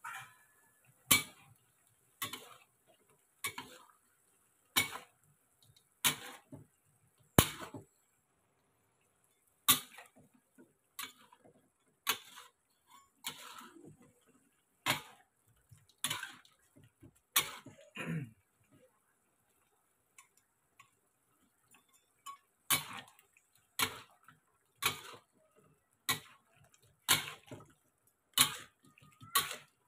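Metal spatula knocking and scraping against a wok while chicken and banana-stem pieces are stirred: sharp clacks about once a second, with two short pauses.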